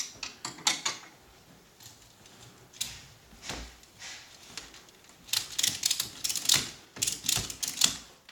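Tie-down strap being tightened: the strap's metal buckle clicks in quick bursts, a few at first and a long run of rapid clicks over the last three seconds.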